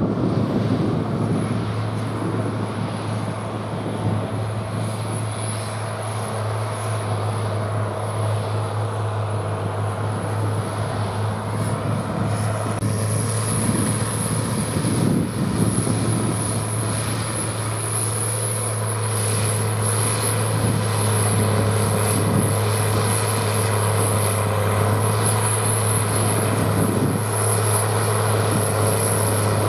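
Case IH tractor and Pöttinger Jumbo loader wagon picking up a grass swath: the tractor's diesel engine running steadily under load, with a low drone and a constant high whine, getting a little louder as it draws near.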